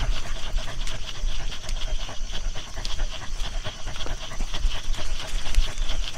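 Dog panting, over a steady low rumble.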